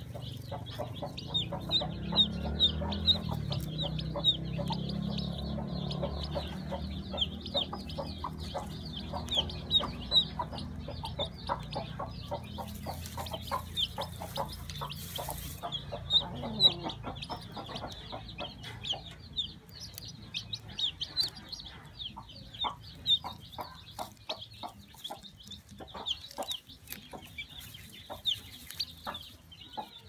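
Chick peeping in a steady run of short, high peeps as it hatches, while its eggshell is picked away by hand, with small clicks of shell and straw. A low murmur sits under the peeps in the first several seconds.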